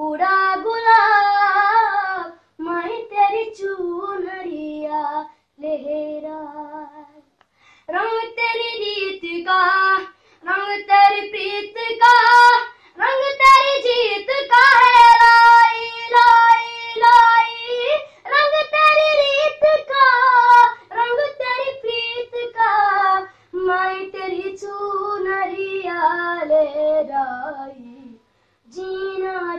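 A boy singing solo and unaccompanied: a melodic line of phrases with long held notes and brief pauses for breath between them.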